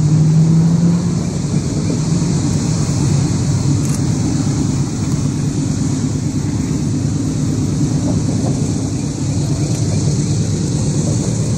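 Diesel-electric freight locomotives approaching, their engines giving a steady low drone.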